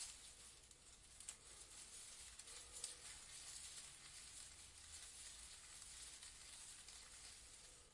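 Leaves rustling faintly in a breeze: a soft, steady high hiss with a few small crackles, and a low rumble underneath.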